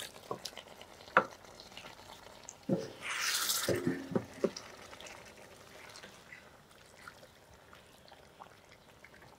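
Wooden spoon stirring and turning fried chicken in a large aluminium pot, with a few knocks of the spoon against the pot and a short louder burst of sizzling about three seconds in.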